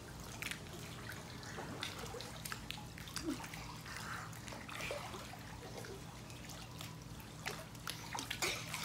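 Swimming-pool water lapping and trickling, with small splashes and drips from a child swimming through it, a bit louder near the end as an arm breaks the surface. A faint steady hum runs underneath.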